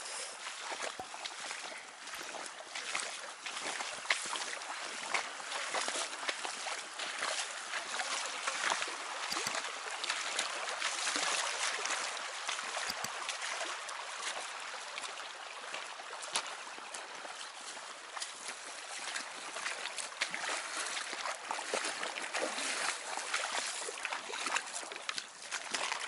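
Water splashing and sloshing around the legs of people wading through a shallow river, over a steady rush of running water. Later, irregular crunching steps on loose river stones.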